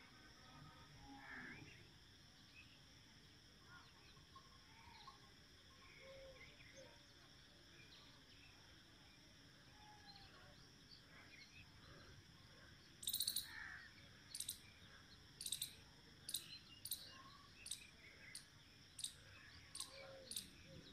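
Outdoor birdsong: faint scattered bird chirps over near silence, then, from about two-thirds of the way in, a run of about ten short, sharp bird calls, roughly one to two a second.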